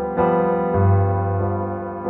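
Background piano music with slow sustained chords, a new chord struck shortly after the start and a low bass note entering just before the middle.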